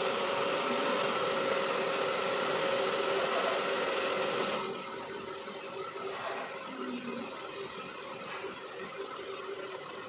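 Handheld hair dryer running, a steady motor whir and rush of air as hair is blow-dried over a round brush. It turns quieter about four and a half seconds in.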